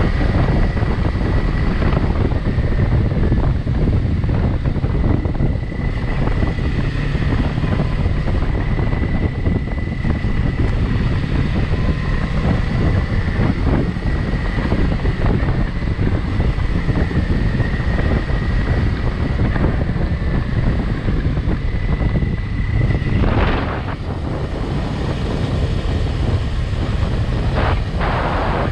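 Motorcycle engine running under way, with heavy wind buffeting the microphone and scattered knocks from the rough track. There is a short, louder rush late on.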